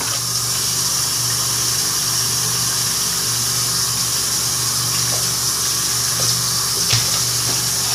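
Bathroom sink tap running steadily into the basin, a constant hiss of water over a low steady hum, with one short knock about seven seconds in.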